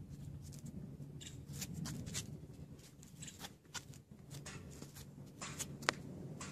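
Scratchy scuffs and soft clicks of a kitten pawing and mouthing a felt tennis ball on a hard floor, irregular and a few a second, with one sharper click near the end. A low steady hum runs underneath.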